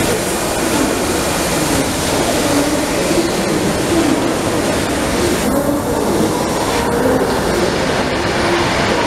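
Victorian Railways K-class steam locomotive K190 and its red wooden heritage carriages rolling slowly past, steel wheels rumbling over the rails with a wavering squeal.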